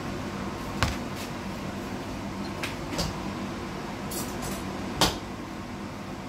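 Kitchen clatter: several sharp knocks and clicks of kitchenware and cupboard doors, the loudest about five seconds in, with a short hiss just before it, over a steady low hum.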